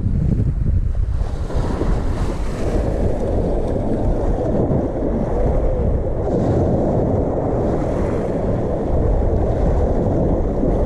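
Steady wind rushing over the microphone, with waves on open water.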